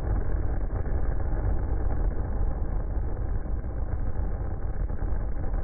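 Atlas V rocket at liftoff, its RD-180 main engine and solid rocket boosters giving a loud, steady, deep rumble, heard in slowed-down slow-motion playback.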